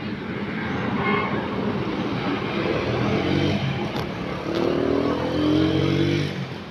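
A motor vehicle engine, likely a motorcycle, runs and passes, growing louder and then dropping off suddenly near the end. A steady rushing background sound lies underneath.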